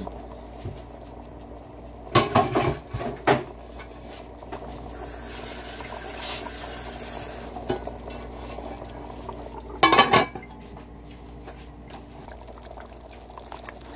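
Metal lid clanking against a stockpot: a few clinks about two to three seconds in and a louder clatter about ten seconds in as the lid goes on. The gumbo simmers in the pot between them, coming up to the boil.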